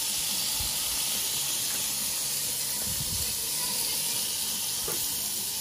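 Thick beef steaks searing on the grate of a hot gas grill: a steady sizzling hiss.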